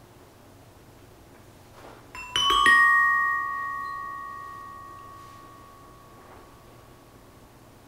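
Metallophone struck two or three times in quick succession about two seconds in, its bell-like notes ringing on and fading slowly over several seconds.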